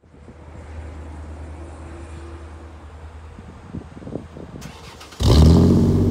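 Faint outdoor hum, then about five seconds in a Ford Explorer Sport Trac's 4.0 V6, freshly fitted with a Magnaflow exhaust, fires up loudly on a cold start and settles into a steady idle.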